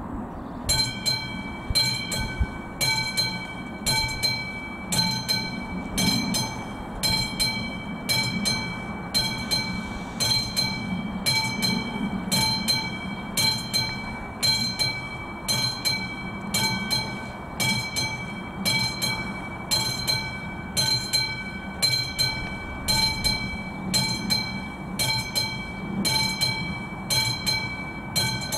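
Mechanical warning bell of an AŽD 71 level-crossing signal starting to ring about a second in, then striking in a steady, even rhythm with a bright metallic ring, sounding the warning that a train is approaching.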